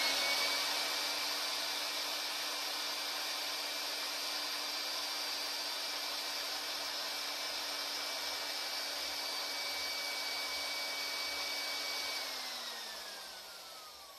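Large old electric drill, fitted with a Versamatic 4400 planetary speed reducer, running at a steady speed with its bit in a board. About twelve seconds in it is let off and spins down, its whine falling in pitch as it fades.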